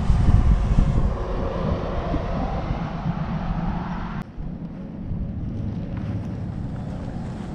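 Wind buffeting the microphone: a ragged low rumble with a hiss above it, which drops suddenly about four seconds in to a softer rumble.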